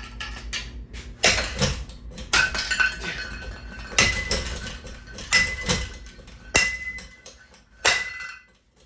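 Metal parts of a ceiling fan being struck and knocked about: about nine sharp clanks, several followed by a short metallic ring.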